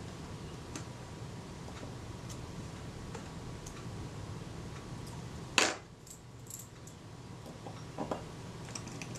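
Small metal ticks and taps of tweezers and a screwdriver on a Kodak Retina IIIc camera's top-plate mechanism while a thin shim washer is fitted under a screw, with one sharper click a little past halfway and a couple of light clicks near the end.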